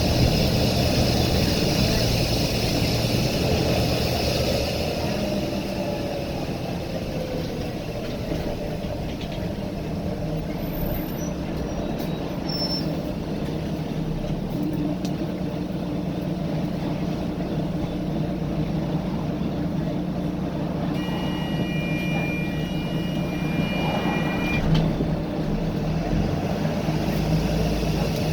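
Volvo B9TL double-decker bus's six-cylinder diesel engine and drivetrain running steadily, heard from on board. A loud hiss sits over it for the first few seconds, then dies away. A steady high tone sounds for about three seconds near the end.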